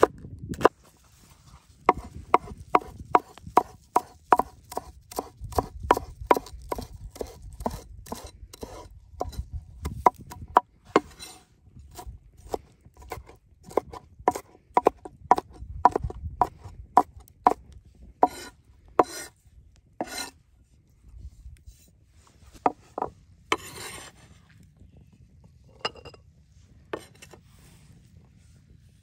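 Chef's knife chopping vegetables on a wooden cutting board: rapid, even knocks of the blade through green pepper and herbs into the wood at about three a second, growing sparser about two-thirds of the way through. One longer scraping stroke of the blade across the board comes a few seconds later.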